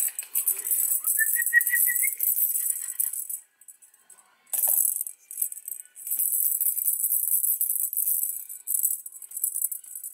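A hand-held rattle shaken in several bursts with short pauses between, a dry, high-pitched rattling. About a second in, a quick run of five short squeaks rises in pitch.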